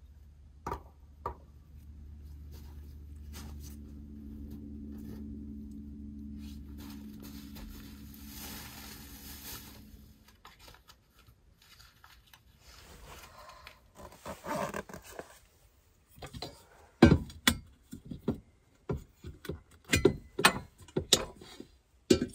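Two clicks, then a low steady hum for several seconds, followed by a run of sharp knocks and clatters from household items being handled, the loudest near the end.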